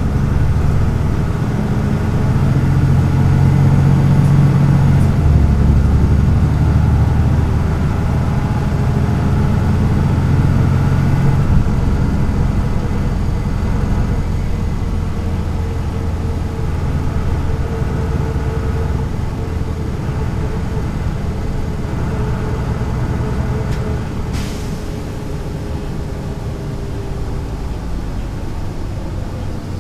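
Diesel engine of a 1993 MAN NL 202 city bus with a Renk automatic gearbox, running under way. The engine note steps up about 5 seconds in and drops about 11 seconds in, like gear changes, then runs on somewhat quieter. A short sharp noise comes about 24 seconds in.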